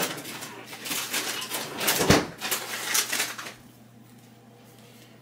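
Kitchen freezer being opened and searched: a door opens and shuts amid rustling and several knocks, the loudest thump about two seconds in, then it falls quiet.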